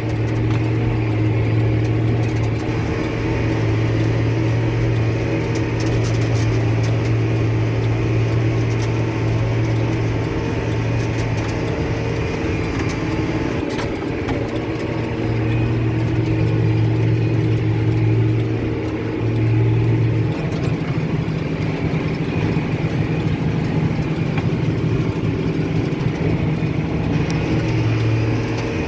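John Deere tractor engine running steadily under load while pulling a working Krone 1290 large square baler. A deep hum drops out and comes back a couple of times.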